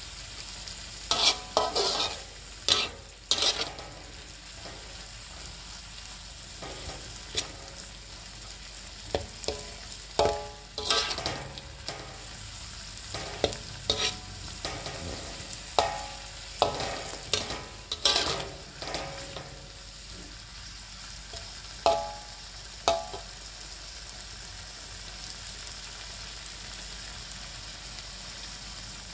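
Metal spatula scraping and knocking against a wok in irregular strokes, with short metallic rings, as a stir-fry of kencur leaves, tempe and anchovies is turned over a steady low sizzle. The stirring stops a few seconds before the end, leaving only the sizzle.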